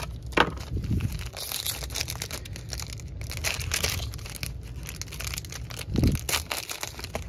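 Foil pouch of a Polaroid 600 film pack crinkling and tearing as it is pulled open by hand, with irregular crackles throughout. A dull thump stands out about six seconds in.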